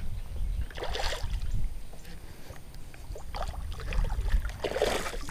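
Wind buffeting the microphone, with water splashing twice, about a second in and near the end, as a small bass is reeled to the side of the boat.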